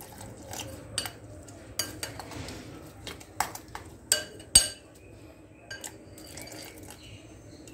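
Steel spoon and steel cup clinking irregularly against a glass mixing bowl while water is stirred into oats, semolina and gram flour to make a chilla batter.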